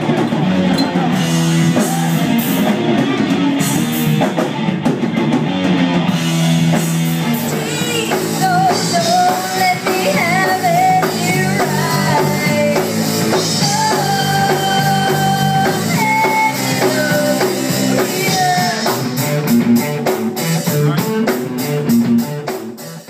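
Rock band playing: electric guitar, bass and drum kit, with a singing voice coming in about eight seconds in. The music fades out at the very end.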